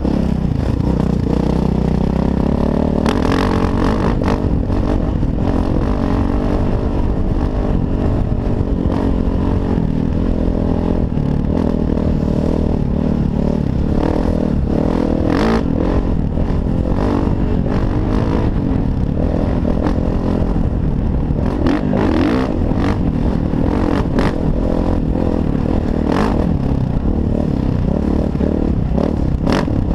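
Kawasaki KX450F single-cylinder four-stroke dirt bike engine running under load at trail speed, its pitch rising and falling with the throttle, heard through a helmet-mounted camera with heavy wind rumble. Scattered sharp knocks and clatter come from the bike over rough ground.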